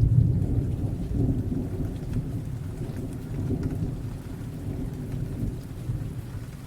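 A low, rolling rumble with faint scattered ticks over it, loudest at the start and slowly easing off.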